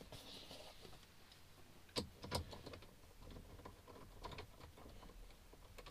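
Faint metallic clicks of a socket ratchet and the steering wheel retaining bolt being fitted and turned into the steering shaft: two sharper clicks about two seconds in, then a run of light, uneven clicks.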